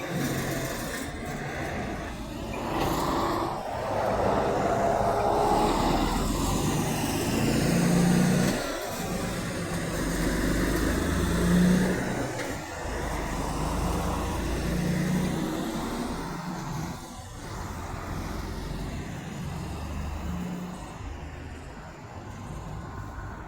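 Semi truck diesel engines running and pulling through, a low rumble that swells and eases several times.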